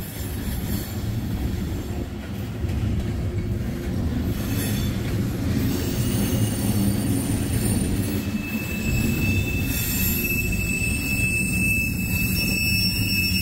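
Freight train of tank cars rolling past: a steady low rumble of wheels on the rails. A thin, high, steady wheel squeal joins about two-thirds of the way through and holds.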